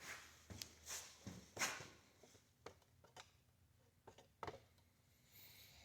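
Faint scattered clicks and knocks, about ten in the first four and a half seconds, from the camera being handled and moved.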